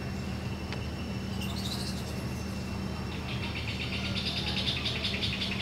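A bird calling: a short chirping phrase about one and a half seconds in, then a fast rattling trill from about three seconds in, over a steady low hum.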